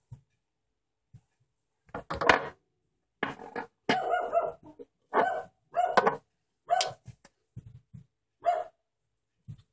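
A dog barking in a run of short barks, about one a second, starting about two seconds in.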